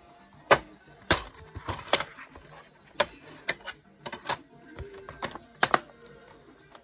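Black plastic DVD case being opened and handled, giving a string of sharp plastic clicks and clacks at irregular spacing as the case is opened and the disc is unclipped from the centre hub.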